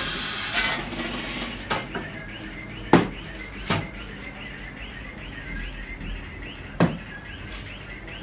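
Pneumatic hot fix stone press: a short burst of air hiss as the press is worked, then a few sharp metallic knocks from the machine's sliding bed and frame. A faint, even chirp repeats about three times a second throughout.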